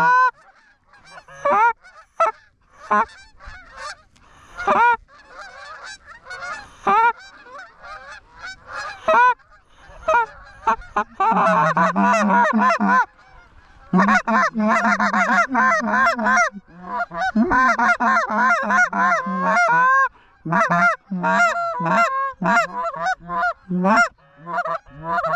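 Geese honking and clucking in rapid, overlapping flurries. Single honks are scattered at first, and the calling is densest and loudest from about 11 to 20 seconds in.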